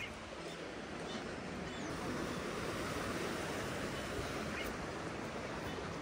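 Steady wash of sea surf, an even noise with no distinct events.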